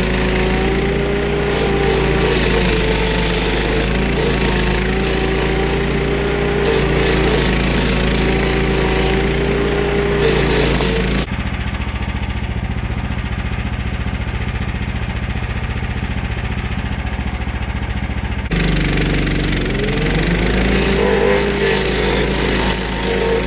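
Petrol stump grinder running hard with its cutter wheel grinding into a very hard plum-wood stump, the engine note wavering under load. About eleven seconds in it suddenly drops to a quieter, duller steady run for some seven seconds, then revs back up and carries on grinding.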